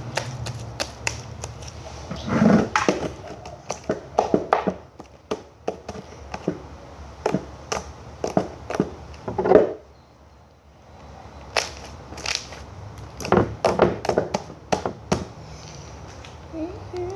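Homemade glue slime being squished and stretched by hand: irregular wet clicks and squelching pops in clusters, with a short pause about ten seconds in.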